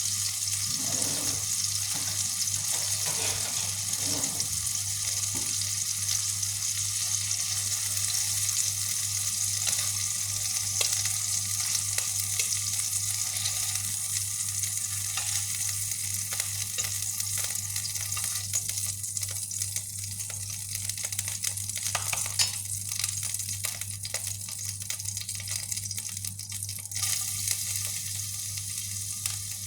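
Chicken meatballs frying in hot oil, a steady sizzle with scattered light clicks of a utensil in the pan, over a steady low hum.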